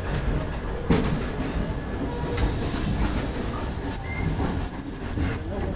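Passenger train coaches rolling slowly past with a low rumble and a few knocks from the wheels. From about three seconds in, the wheels squeal in a steady high-pitched whine.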